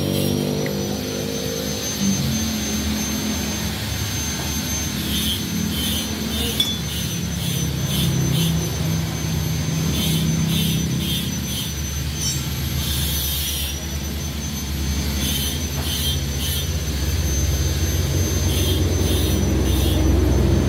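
Motor scooter engine idling steadily, with a thin high steady whine over it and light metallic clicks every few seconds as exhaust springs and tools are handled.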